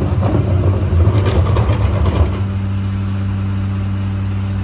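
Engine of a Mack LR garbage truck with a McNeilus rear-loader body running steadily, with clanks and rattles over the first two seconds before it settles to an even drone.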